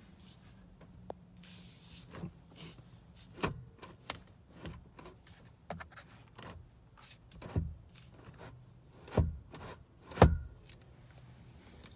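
Steering wheel tilt-and-telescope lever released and the wheel moved, giving scattered clicks and clunks, the loudest two near the end, over a low steady hum.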